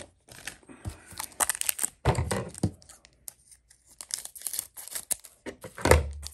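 Foil wrapper of a Pokémon booster pack crinkling in the hands and being snipped open with scissors: scattered crackles and clicks, with a dull handling bump about two seconds in and a louder one near the end.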